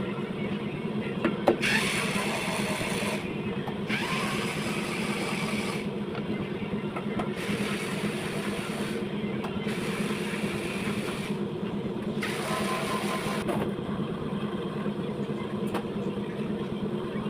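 An engine running steadily at idle, with a hissing, rushing noise that comes and goes five times, each for a second or two.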